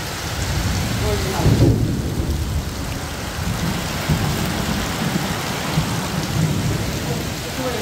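Heavy rain pouring down with a deep low rumble underneath, which swells briefly about a second and a half in.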